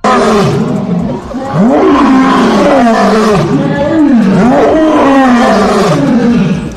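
A wild animal calling loudly: a run of pitched calls, each rising and then falling, about one a second.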